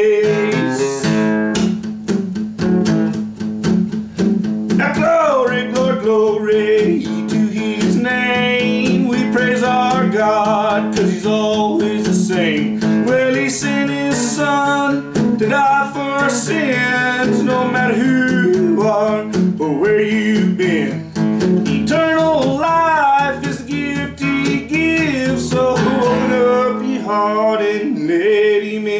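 Steel-string acoustic guitar picked in a country gospel tune, with a man singing over it from about five seconds in.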